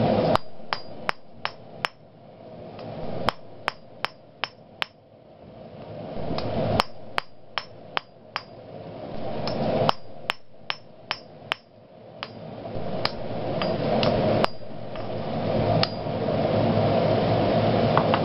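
A hand hammer strikes a red-hot iron bar on the anvil in quick bursts of about four to seven ringing blows, with short pauses between the bursts.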